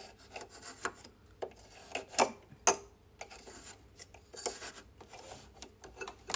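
Knit binding tape being pushed through a metal 18 mm three-fold binder attachment on a coverstitch machine with an awl and tweezers: soft fabric rubbing with irregular light clicks of the metal tools against the guide, and two sharper clicks a little past two seconds in.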